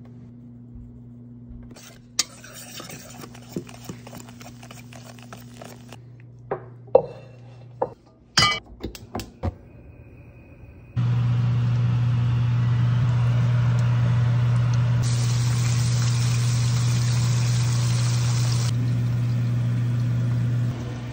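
Seasoned flour being stirred in a stainless steel bowl, with a few sharp clinks of a utensil against the metal. Then, about halfway through, a loud, steady frying sizzle of battered northern pike in hot oil begins over a low hum.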